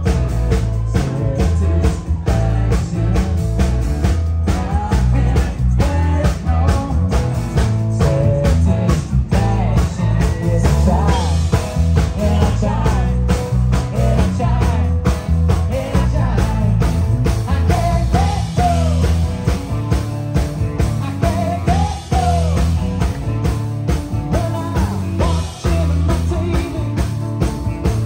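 Live rock band playing, heard from on stage beside the percussion: a steady beat of drums, timbales and cymbals, with guitar, strong bass and a woman singing.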